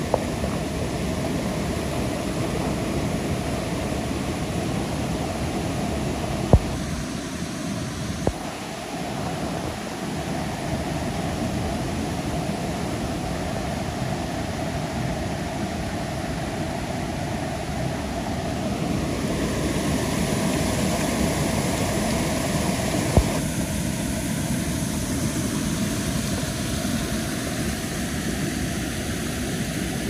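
Waterfall rushing, a loud steady noise of falling water, with three brief knocks.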